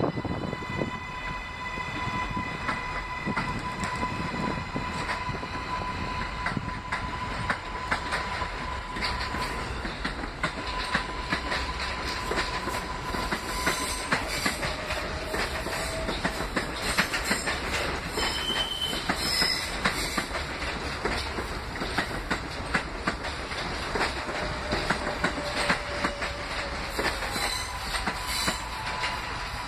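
R143 subway train pulling out and rolling slowly over switches: a steady high whine through the first half, then wheels clacking over rail joints and switch points with a few faint brief squeals.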